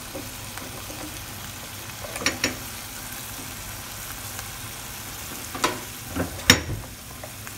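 Diced tomatoes, onion and sweet peppers sizzling steadily in a pan while a spatula stirs them. A few sharp scrapes and knocks of the spatula against the pan come through, the loudest near the end.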